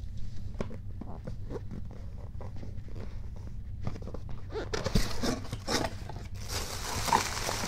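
Packing tape on a cardboard mailer box being slit and pulled open, a run of short scratches and rips. From about five seconds in the box flaps are opened and tissue paper rustles, louder than the cutting.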